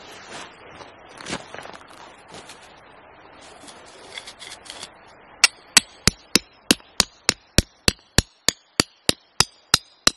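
Wood being worked with a tool: a few seconds of scraping and rubbing on wood, then a fast, even run of sharp strikes on wood, about three a second, each with a slight metallic ring.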